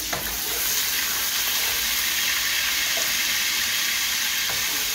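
Sliced onions sizzling steadily as they fry in oil in a pot, stirred with a metal spoon that clicks against the pot a couple of times.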